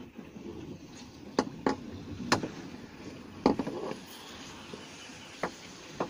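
Kayak paddling: the paddle blades dip and splash in the water, with several sharp knocks of the paddle against the kayak's hull.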